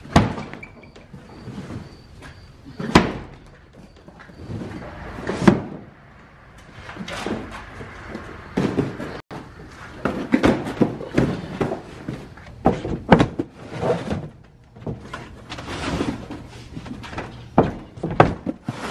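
Cardboard boxes of sweet corn being set down and stacked on a wooden trailer bed: a sharp thud every few seconds, then a quicker run of knocks and scuffs against the boards.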